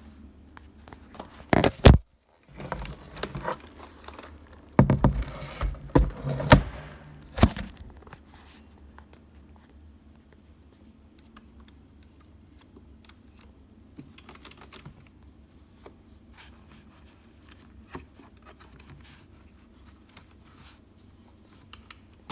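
Handling noise: a cluster of sharp knocks and rattles in the first seven or eight seconds, then faint scattered clicks and rustling.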